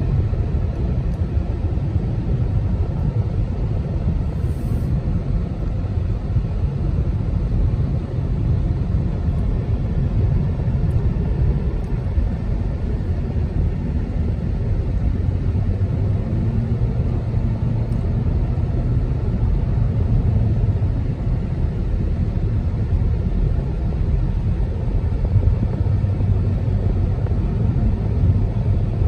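Road noise inside a moving car's cabin: a steady low rumble of tyres and engine at cruising speed.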